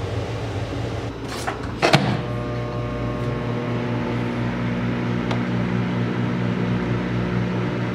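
Microwave oven humming steadily, with two sharp clacks about a second and a half and two seconds in, after which the hum carries more steady tones.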